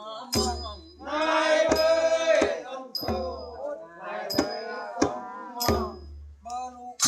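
Singing voices chanting a ruam trud folk song, with sharp percussion strikes keeping a steady beat under the melody.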